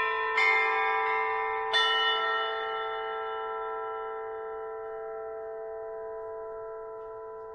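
Bell-like musical tones: two notes struck about a second and a half apart, each ringing with many overtones, then one long, slow fade to the end.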